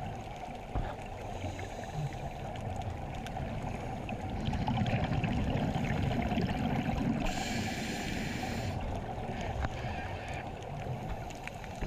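Steady muffled rush of water picked up by a camera held underwater, with faint crackle. A brighter hiss joins for about a second and a half, about seven seconds in.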